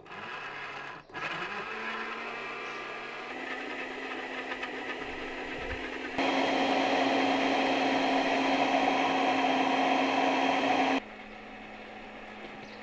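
Countertop glass-jar blender running, blending strawberries, ice cream and milk into a milkshake. Its steady hum gets much louder about six seconds in and drops back to a lower level about a second before the end.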